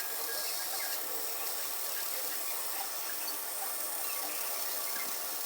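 Toy lathe running steadily, its small motor giving an even high whir as it turns a stick of chalk.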